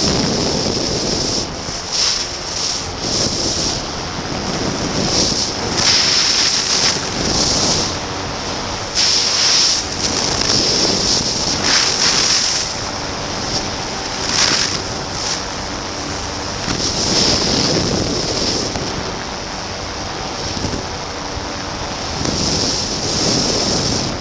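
Wind buffeting the camera microphone in irregular gusts, over the steady drone of a Pegasus Quantum 912 flexwing microlight trike's Rotax 912 engine in flight.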